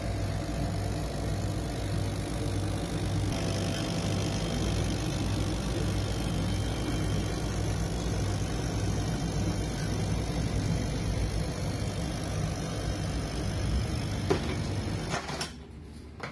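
CO2 laser cutting machine running as it cuts: a steady mechanical hum with a regular low throb. It cuts off about fifteen seconds in, leaving quieter room sound.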